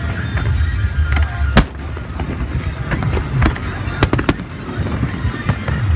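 Aerial fireworks shells bursting in a series of sharp bangs over a low rumble, the loudest about a second and a half in and a quick cluster of bangs around four seconds in.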